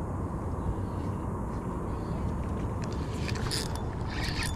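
Wind buffeting the microphone, a steady low rumble. From about three seconds in, a run of sharp clicks and rustles, handling noise as the camera is moved.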